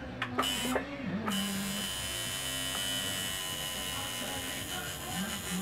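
Coil tattoo machine buzzing as it tattoos the skin. It starts just over a second in and then runs steadily.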